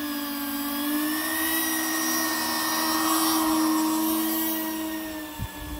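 Electric ducted fans of a radio-controlled Airbus A380 model whining steadily as it taxis, getting louder as it passes close by around the middle and easing off toward the end; one fan is missing two blades. A short low thump near the end.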